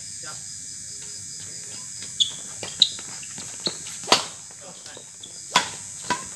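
Badminton rackets striking a shuttlecock in a fast rally: a series of sharp, short hits, the loudest a full overhead swing about four seconds in. Crickets chirp steadily underneath.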